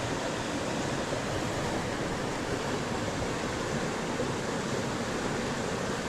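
Flowing river water making a steady rushing sound.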